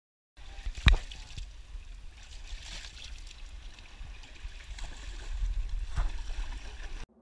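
Water lapping and splashing around a wooden outrigger canoe with bamboo outriggers, over a steady low rumble, with a loud knock about a second in and a smaller one near the end. The sound cuts off suddenly just before the end.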